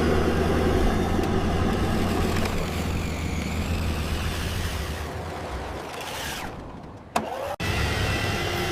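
A vehicle engine running steadily with a deep hum. It fades slowly, breaks off briefly with a click about seven seconds in, then comes back at full level.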